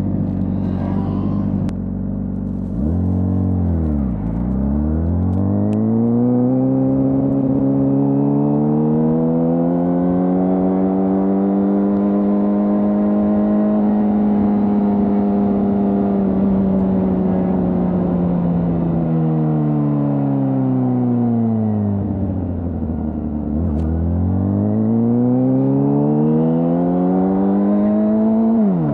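Honda CBR600RR's 599 cc inline-four with its stock exhaust, running low and steady at first, then its pitch climbing smoothly as the bike speeds up, holding high through the middle, dropping away, and climbing again near the end with a brief sharp dip, like a gear change.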